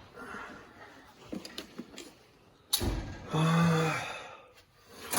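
Car parts being handled and set down: a few light clicks, then a single sharp knock about halfway through.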